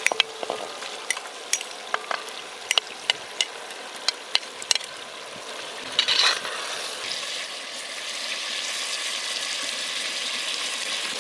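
Raw moose meat frying in hot oil in a cast iron pot, with many sharp spattering pops. About six seconds in it is stirred with a spatula, and after that the frying settles into a steady, louder sizzle.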